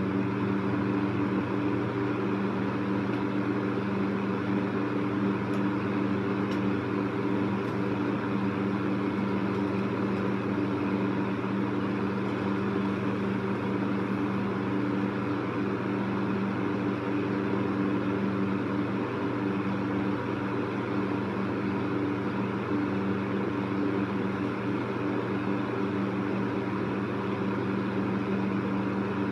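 Electric fan running steadily at speed: an even rush of air over a low motor hum.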